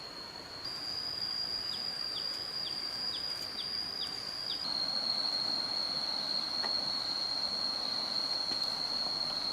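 Insects droning steadily at a high pitch, the drone stepping slightly up and then down twice. Partway through, a series of about seven short falling chirps comes roughly twice a second.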